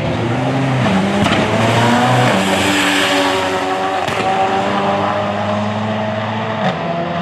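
High-horsepower race cars accelerating hard at full throttle, the engine note climbing and then dropping at each of several gear changes.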